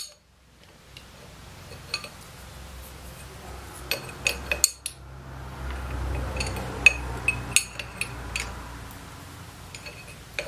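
Metal clinks and ticks of a steel open-end spanner and pliers working a nut on a brass pipe fitting as it is tightened, irregular and clustered in two runs, over a low rumble.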